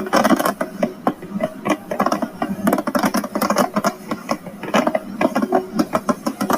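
Dense, irregular crackling pops of fireworks going off in quick succession.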